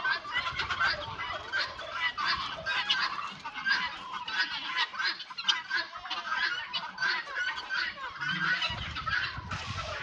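A mixed farmyard flock of turkeys, geese, ducks, guinea fowl and hens, calling over one another while they feed on scattered maize. The short calls are many and overlapping, with no break.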